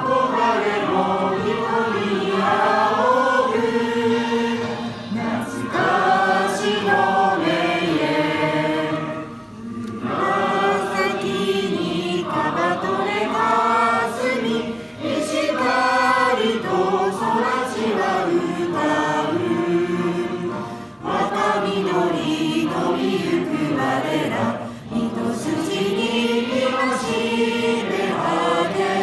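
A group of adults singing a school song together as a choir, in phrases with short breaths between them.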